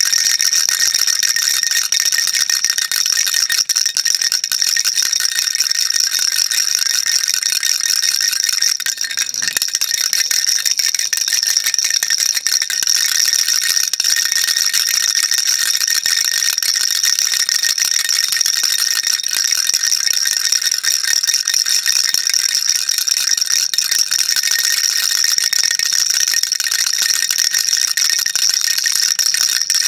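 Baby rattle shaken without a break, a dense, even clatter that dips briefly about nine seconds in.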